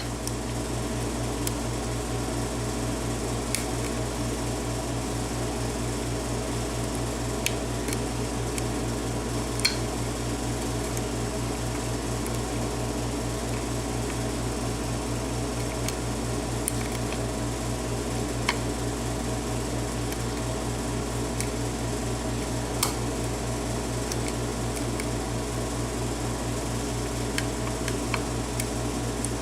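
Steady motor hum with a low, even drone, over which metal lock picks click faintly and now and then against the pin tumblers of a Yale six-pin cylinder lock as the pins are worked.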